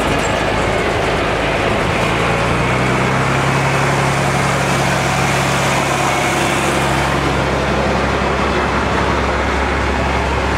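Loud, steady running of modified tractor-pulling engines. Their low hum shifts in pitch about a third of the way in and again past the middle.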